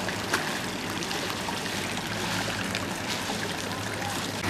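Rainwater running and trickling through a flooded street, over a low steady hum. A single short sharp knock comes about a third of a second in.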